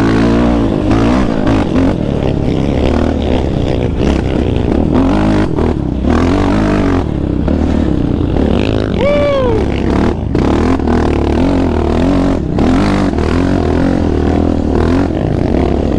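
Yamaha Raptor 700R quad's single-cylinder four-stroke engine under way, revs rising and falling with the throttle.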